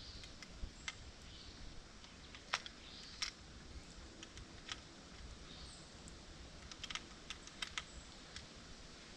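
Irregular small clicks of .22 cartridges being handled and pushed one at a time into a magazine.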